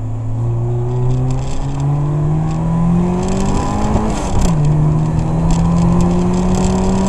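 Turbocharged 2.0-litre car engine, a big turbo running 1 bar of boost, heard from inside the cabin under hard acceleration. Its pitch climbs steadily, drops at a gear change about four seconds in with a burst of hiss, then climbs again.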